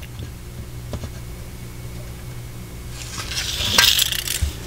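Low steady hum with a faint tick or two. About three seconds in, a short scraping rustle as the tape measure is pulled off the grey plastic fuselage part and hands handle the part.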